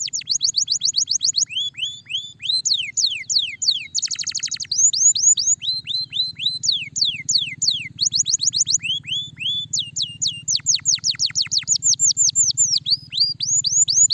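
Domestic canary singing: long fast trills of whistled notes that each sweep downward, and a dense buzzing rattle about four seconds in. A steady low hum runs underneath.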